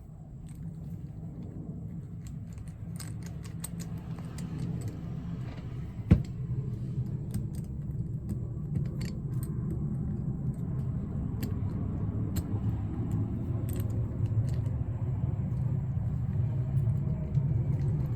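Light metallic clicks and taps of small padlock parts being handled and fitted, with one sharper knock about six seconds in. Under them is a steady low rumble that slowly grows louder.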